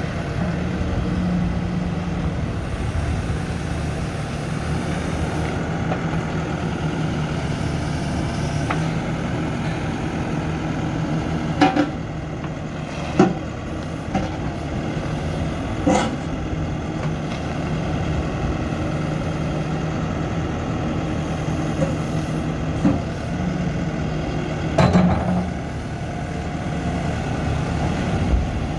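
Lonking 83C backhoe loader's Perkins 3.6-litre diesel running at a steady idle, with a handful of short, sharp metallic knocks spread through it.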